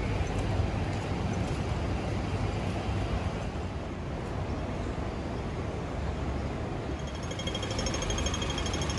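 Steady road traffic or vehicle noise, a constant low rumble. About seven seconds in, a faint high, rapidly pulsing tone joins it.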